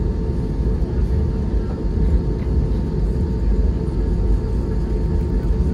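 Airbus A320neo cabin noise while taxiing: a steady low rumble of the engines and the rolling jet, heard from inside the cabin, with a faint steady whine above it.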